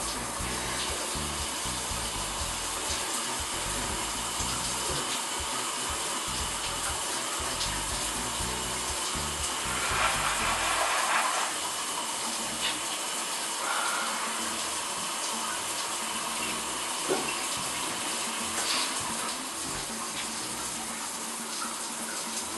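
Water running steadily from a tap, with a louder spell about ten seconds in and a couple of sharp knocks later on.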